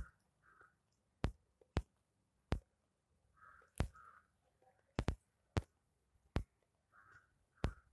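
A mother cat nursing her newborn kittens: sharp, irregular clicks about once a second, and three times a pair of short soft rasping sounds.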